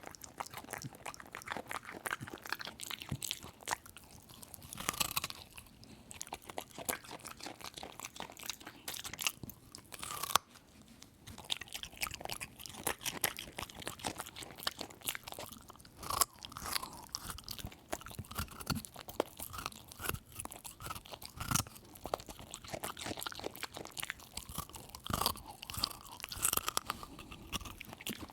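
Dog chewing a raw carrot: repeated wet crunches and bites, irregular, with short pauses between bouts of chewing.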